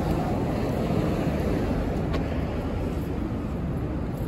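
Steady road traffic noise from cars and vans running along a city street, with no single event standing out.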